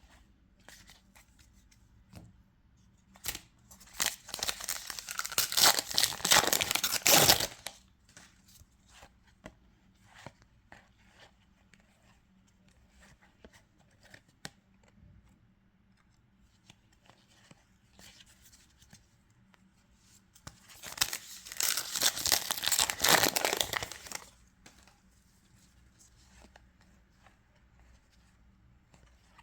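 Trading-card booster-pack wrappers being torn open twice, each time a few seconds of tearing and crinkling, once about four seconds in and again past the twenty-second mark. Light handling clicks come in between.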